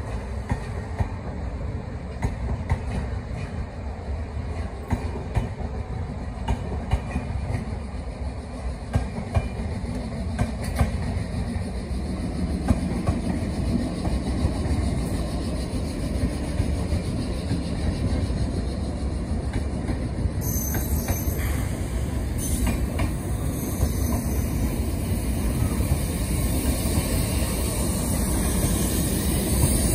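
A diesel-electric multiple unit (DEMU) train passing close by, its wheels rumbling steadily and clicking over the rail joints. The sound grows fuller about twelve seconds in, with more hiss in the last third.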